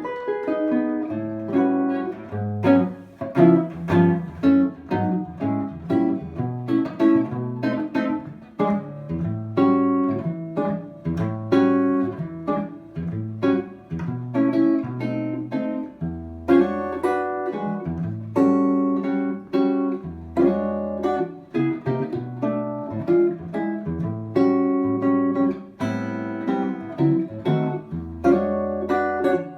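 A 1950 Crafton Model 72 guitar with a 1967 DeArmond 1100 pickup being played: a steady run of plucked chords and single notes over bass notes.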